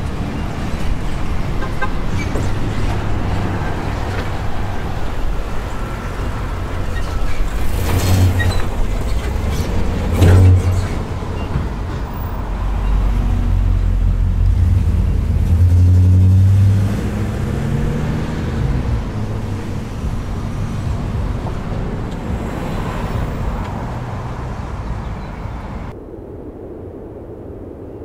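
Street traffic: vehicles passing close by with a heavy low rumble that swells several times, the loudest pass about midway as a large box delivery truck goes by, its engine note climbing as it moves off. About two seconds before the end it cuts to a much quieter low hum.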